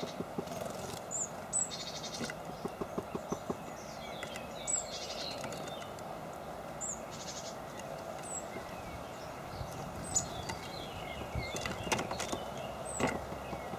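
Small birds calling with short, high chirps every second or so, with a few runs of quick taps and flutters, over a steady outdoor background hum.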